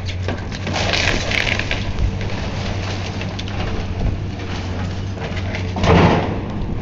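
A demolition machine's engine running steadily while it tears into the building, with crackling and clattering debris about a second in and a louder crash of falling material just before the end.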